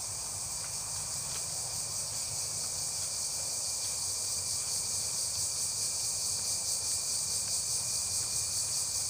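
Chorus of insects: a steady high-pitched buzz with a fast pulsing, growing slightly louder.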